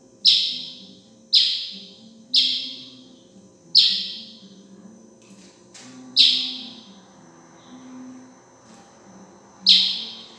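Young curió (chestnut-bellied seed finch) giving six sharp, high chirps, the first four about a second apart and the last ones further spaced, each ringing on briefly. It is a fledgling practising its song.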